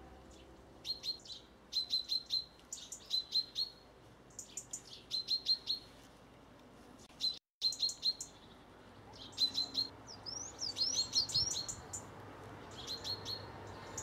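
Birds chirping: quick runs of three to five short, high chirps, repeated every second or two, with a few sliding, whistled notes about three-quarters of the way through.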